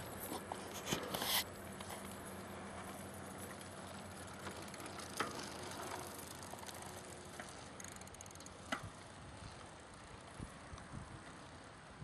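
Bicycle being ridden: a steady rolling noise from the tyres, with occasional sharp clicks and rattles from the bike.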